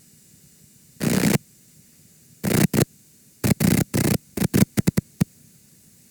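VHS tape damage sound effect: harsh bursts of static that cut in and out abruptly over a faint hiss. One burst comes about a second in, then a stuttering run of shorter bursts that grow briefer and stop about five seconds in.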